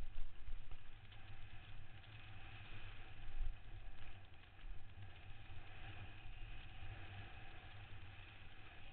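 Wind buffeting a helmet-mounted camera's microphone with tyre noise on a dirt trail during a downhill mountain-bike descent: a rough, uneven low rumble with scattered clicks and rattles, loudest near the start and again about three and a half seconds in.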